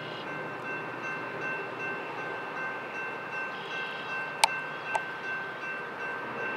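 Railroad grade-crossing warning bell ringing steadily over a low rumble, with two sharp clicks about four and a half and five seconds in.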